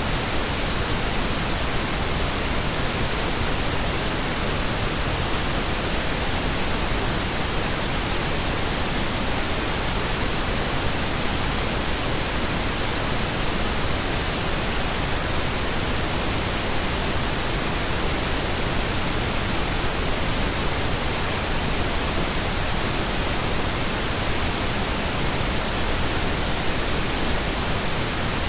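Steady synthetic pink noise: an even, unchanging hiss spread across all pitches, played as a sleep aid.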